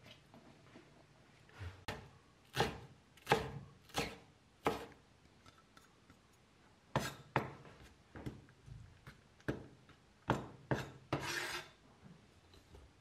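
Chinese cleaver chopping wet celery leaves on a wooden cutting board: five single chops about 0.7 s apart, then a few more at uneven spacing, and near the end a longer scrape of the blade across the board.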